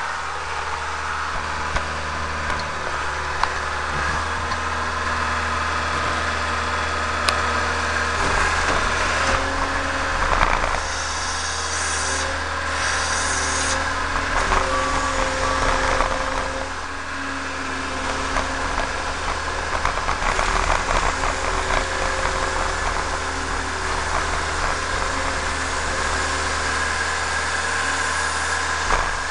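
New Holland C190 compact track loader's diesel engine running steadily, with a whining tone that comes and goes partway through as the machine works.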